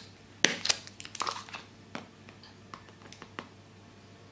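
A metal measuring spoon scooping baking soda out of its tub: a string of short, crunchy scrapes and light clicks, the loudest about half a second in.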